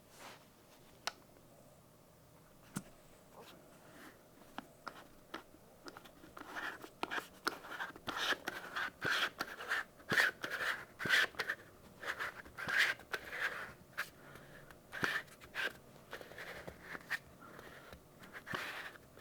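Hand-handling sounds of packaging and small objects: a few separate clicks and taps, then about seven seconds in a busy run of short rustling scrapes and taps that thins out near the end.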